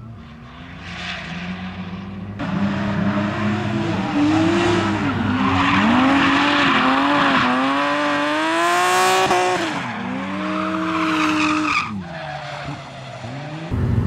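A BMW 3 Series drift car's engine revving up and down over and over as the driver works the throttle through a slide, with its tyres squealing and skidding. The revving is loudest in the middle and is broken by abrupt cuts about two and a half seconds in and again near the end.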